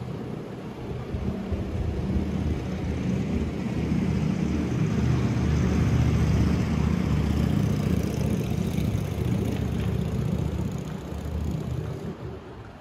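A motor vehicle passing close by: a low rumble that builds over the first few seconds, is loudest around the middle and fades away near the end.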